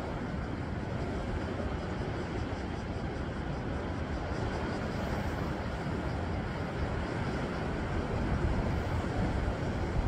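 Steady wash of sea surf breaking on shoreline rocks, with a low rumble of wind under it.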